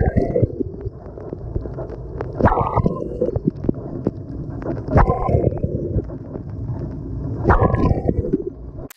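Water spraying and sloshing inside a running dishwasher during its wash cycle, heard from inside the machine. The spray surges loudly about every two and a half seconds, then cuts off suddenly just before the end.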